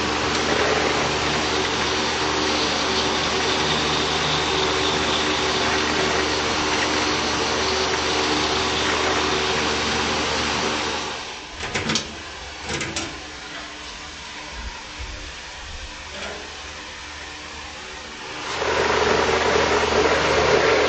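Powder coating gun spraying on compressed air: a steady rushing hiss with a motor hum beneath it. It breaks off about eleven seconds in with a few clicks, goes quieter for several seconds, then starts spraying again near the end.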